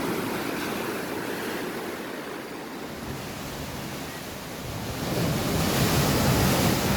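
Ocean surf washing against a rocky shore, a steady rush of water that swells louder about five seconds in as a wave comes in.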